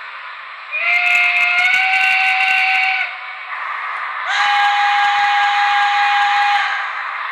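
Steam-locomotive whistle from a sound-equipped model steam locomotive: two long blasts, each sliding up slightly in pitch as it opens, over a steady hiss of steam.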